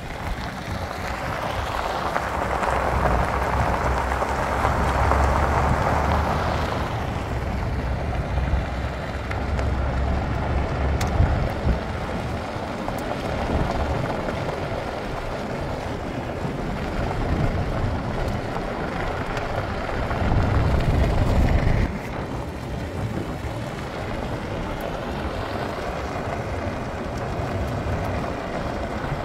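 Car driving slowly on a gravel dirt road: tyre crunch and low road rumble, with wind on the microphone. The rumble swells and eases and drops off suddenly about twenty-two seconds in.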